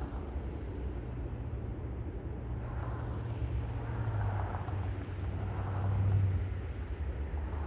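Low steady rumble of a motor vehicle, swelling and loudest about six seconds in, as if passing.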